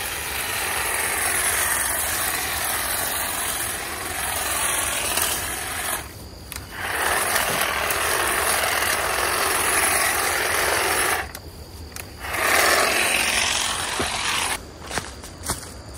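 A hedge trimmer running and cutting through kudzu vines, its motor pitch wavering as the blades bite. It stops for about a second twice, around six and eleven seconds in, and stutters on and off near the end.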